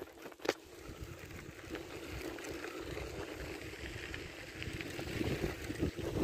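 Wind noise on the microphone, with a sharp knock about half a second in.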